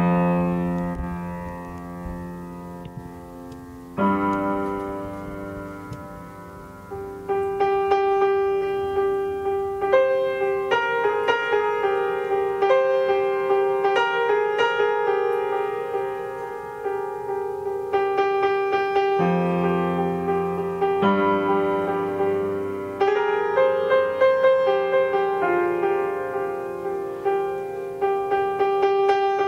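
Piano playing: sustained chords struck near the start and again about four seconds in, then from about seven seconds a steady run of repeated notes over a held middle note, with low chords coming back about nineteen seconds in and again near the end.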